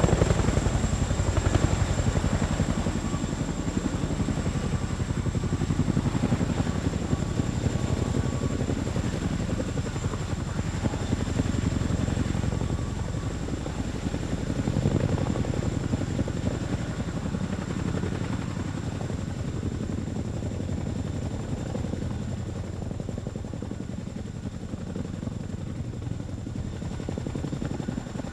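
Boeing CH-47 Chinook tandem-rotor helicopter: rapid rotor-blade chop with a thin, steady high whine, slowly fading with a few swells.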